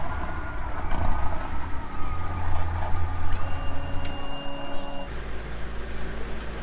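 A tour boat's engine runs with a steady low drone. The sound changes abruptly about five seconds in.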